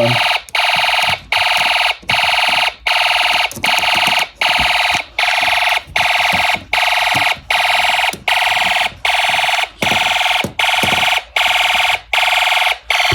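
Fire alarm sounder going off in a steady train of loud, buzzy blasts, about four every three seconds, each cut by a short break: the system in alarm after a pull station was set off.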